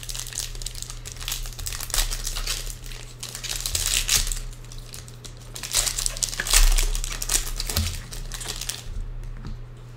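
Foil trading-card pack wrappers being crinkled and torn open by hand, with dense crackling that swells about four seconds in and again around six to seven seconds, then eases off near the end.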